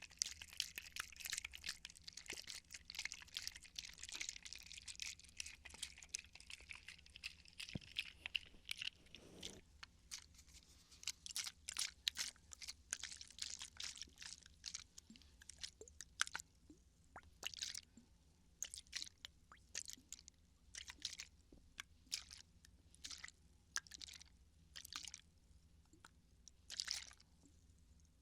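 Water bottle handled close to the microphone for ASMR. A dense run of crackling and rustling lasts about nine seconds, then separate sharp crinkles and crackles follow, roughly one a second.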